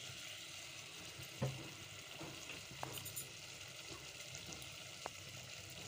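Chicken pieces sizzling gently in hot oil in a pot as ground spices go in, with a few faint clicks.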